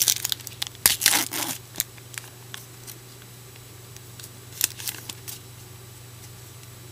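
A trading-card foil pack wrapper being torn open and crinkled, in quick crisp bursts during the first second and a half and again briefly about five seconds in, over a steady low hum.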